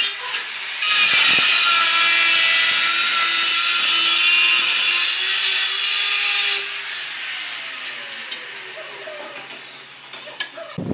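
Handheld angle grinder cutting through a ceramic wall tile: a brief touch at the start, then a gritty, high-pitched cut of about six seconds over the motor's whine. The blade is lifted off and the motor whine winds down, falling in pitch.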